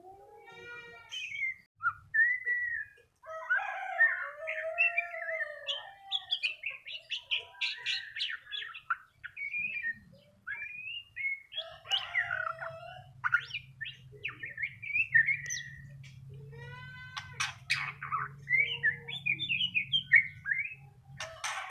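Young white-rumped shama (murai batu), about two months old, singing a varied run of chirps, whistled notes and fast trills with short pauses.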